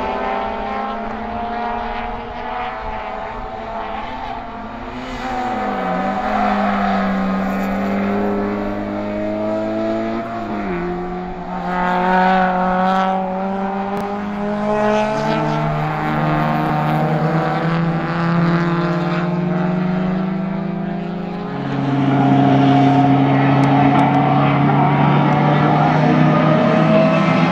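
Racing car engines running hard on a circuit, more than one car at a time, their note dropping and climbing again several times as they change gear; the sound gets louder near the end.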